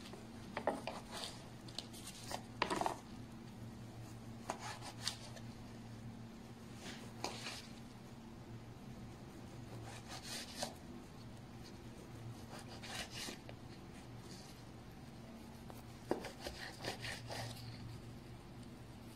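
Small knife slicing grilled chicken breast on a plastic cutting board: scattered short scraping strokes and light taps of the blade against the board, at irregular intervals, over a low steady hum.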